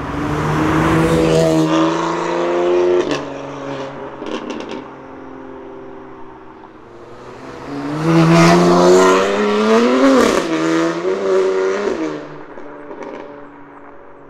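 BMW M3 Competition's twin-turbo inline-six under loud acceleration, going past twice, with a few sharp exhaust pops after the first pass. In the second pass the engine note climbs to a peak and then drops away.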